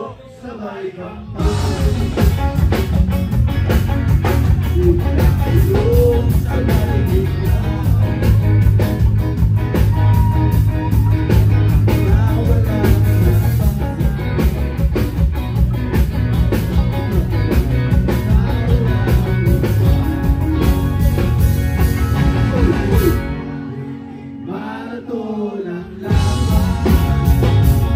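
Live rock band playing loudly with electric guitars, bass, drums and a singer on microphone. The full band comes in about a second in; a little before the end the instruments drop out for a few seconds, leaving mostly the voice, then the band comes back in.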